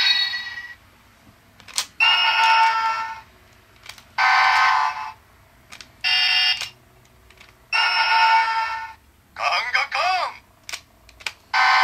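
Bandai DX Shift Changer transformation brace toy playing a series of short electronic sound effects and voice calls, about six in turn, each set off by pressing one of its buttons, with sharp plastic clicks in between. One call near the end warbles like a siren.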